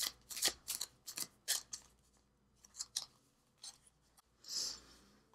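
A deck of oracle cards being shuffled by hand: a quick run of sharp card snaps for about two seconds, then a few scattered taps and a short swish near the end.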